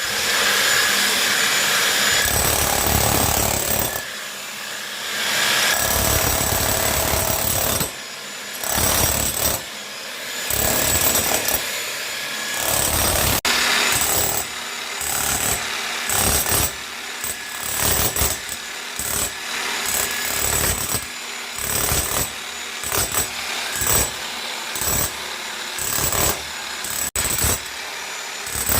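A hand-held power tool working at a skirting board to break it off. It runs in long stretches at first, then in short bursts about once a second.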